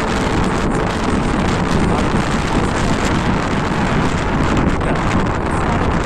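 Strong wind buffeting the microphone: a loud, steady rush and rumble with no letup.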